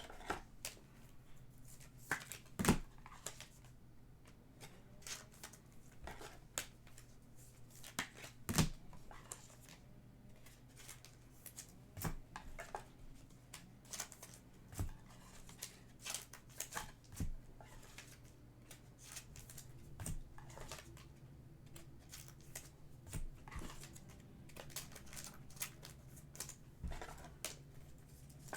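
Trading cards being handled and sorted: irregular light taps, clicks and slides of card stock, with a faint steady hum underneath.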